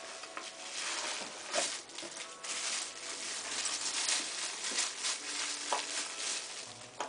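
Wrapping paper crinkling and rustling as presents are unwrapped and handled, with many short sharp crackles.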